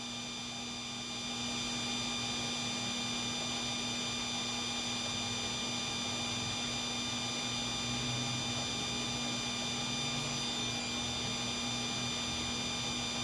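A steady hum with several thin, high, unchanging whining tones over an even hiss.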